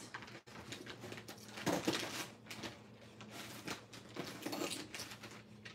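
Irregular rustling and crinkling of packaging being handled, in a string of short crackles.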